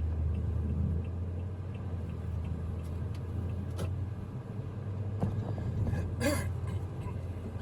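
Steady low drone of a four-wheel-drive vehicle being driven, heard from inside the cabin, swelling just as it begins. A short, pitched squeak-like sound comes about six seconds in.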